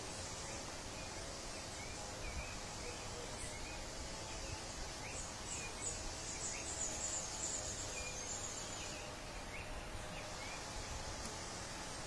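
Forest ambience: a steady background hiss with faint, scattered short bird chirps. For a few seconds in the middle comes a rapid, high-pitched pulsing insect buzz.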